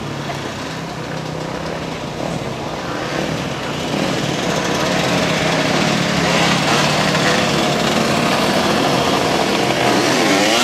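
Dirt bikes and quad bikes riding past in street traffic, their small engines running steadily and growing louder as they approach, with revving near the end.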